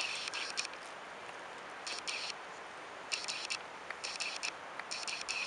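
Dry grass and leaf litter rustling and scraping in repeated short bursts as hands grab at a snake on the ground.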